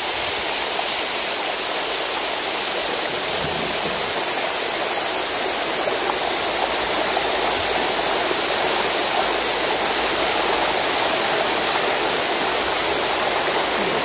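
Güney Waterfall's many thin streams falling over a mossy cliff, heard from right at its foot: a steady, dense rush of falling water with a strong hiss.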